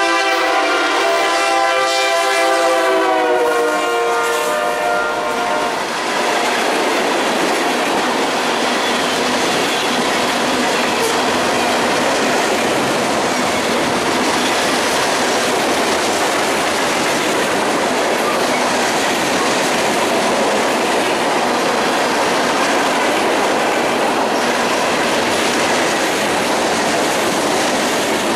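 Norfolk Southern freight train passing close by: the lead diesel locomotive's air horn sounds for about six seconds, dropping slightly in pitch as it passes. Then a string of tank cars and covered hoppers rolls by with a loud, steady noise of wheels on rail.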